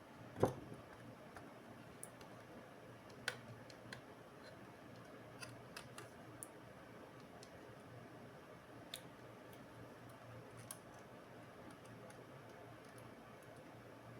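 Laptop parts and small tools being handled during a teardown: scattered light clicks and taps, with one louder knock about half a second in, over a faint steady hum.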